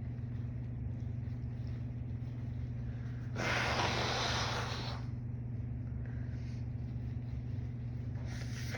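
A young woman's noisy breath through the nose, one long breath about three and a half seconds in and a fainter one near the end, over a steady low hum.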